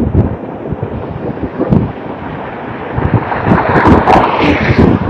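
Heavy, hard breathing blowing straight onto a phone microphone: irregular low thumps of air hitting the mic, with a longer, louder breath about three and a half seconds in.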